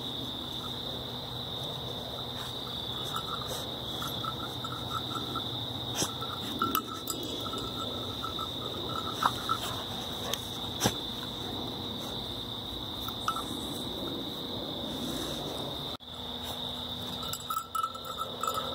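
Night chorus of insects and frogs: a steady high-pitched insect drone, with runs of pulsed, trilling calls a few seconds in and again near the end. A few sharp clicks stand out above it.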